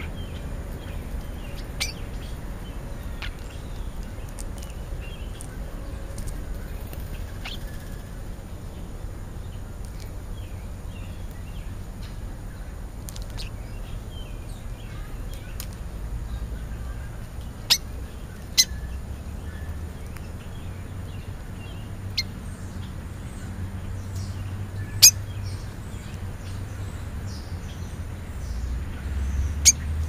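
Birds at a ground feeding spot with European starlings: scattered short chirps and calls, broken by a handful of sharp clicks. A steady low rumble runs underneath.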